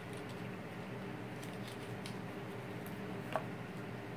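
Plastic wrapping on a lip pencil being pulled open by hand: faint crinkles and light ticks, then one sharper click about three seconds in, over a steady low hum.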